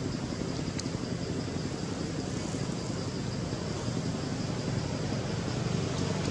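Steady background noise: a low rumble under an even hiss, with no clear animal calls.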